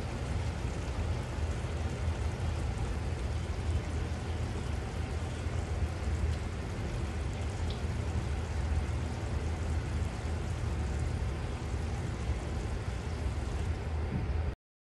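Chicken achari gravy sizzling and bubbling steadily in oil in a pot, over a constant low rumble. It cuts off abruptly near the end.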